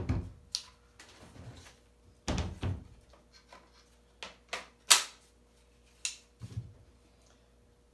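Angle grinders being handled and set down on a hard surface: a string of knocks and thunks with sharp plastic clicks, the sharpest about five seconds in.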